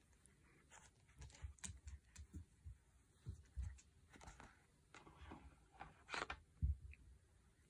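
Faint, scattered light taps, scuffs and rustles of a cat playing with a wand toy, pawing and biting its plastic cord on a wooden floor.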